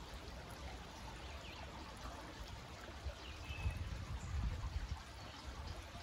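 Shallow creek running over rocks: a steady, even trickle of water. A low rumble swells for a couple of seconds about halfway through.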